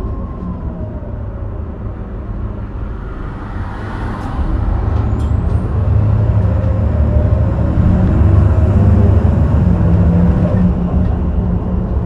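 Heuliez GX327 city bus's diesel engine pulling hard under kickdown through its ZF 5HP 504C automatic gearbox. The engine gets louder about four seconds in and its pitch climbs as the bus accelerates.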